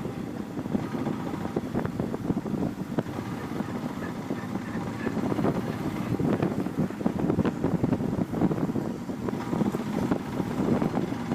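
Motorcycle riding along the road, its engine running steadily under wind buffeting the microphone.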